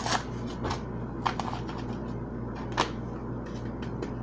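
Ranch dressing seasoning packet crinkling and rustling as it is handled and opened, with a few sharper clicks about a second in and near three seconds.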